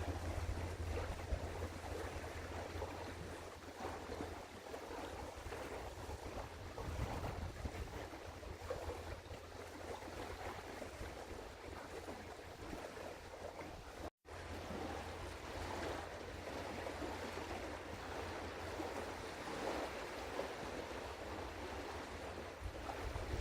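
Steady outdoor wind and water noise with a constant low rumble. The audio cuts out completely for an instant a little past halfway.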